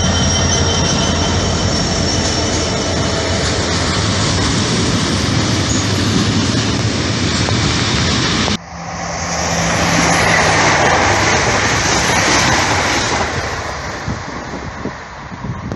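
A GB Railfreight Class 66 diesel locomotive's two-stroke V12 engine runs as it hauls loaded freight wagons past, with wagon and wheel rumble and a faint high squeal. It cuts off sharply about eight and a half seconds in, replaced by another train rushing past close by, then fading as it draws away.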